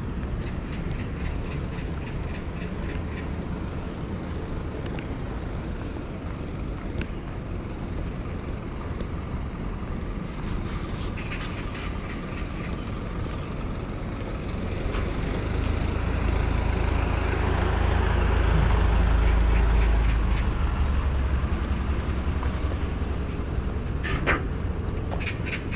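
City street traffic ambience. A heavy vehicle passes with a low rumble that builds from about fifteen seconds in, is loudest around twenty seconds, then fades. Light regular ticks, like footsteps on paving, come and go.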